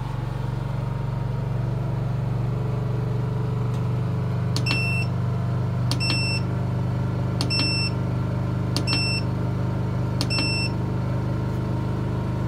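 Honda EU2200i inverter generator running with a steady hum as it takes up charging load from the Growatt inverter. Over it, five short electronic beeps about a second and a half apart from the Growatt inverter's panel buttons being pressed.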